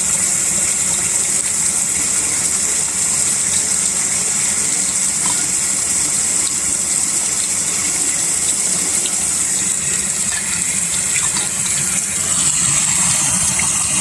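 Small water jets gushing steadily into water, making a constant rushing hiss meant to sound like a rocket's jet.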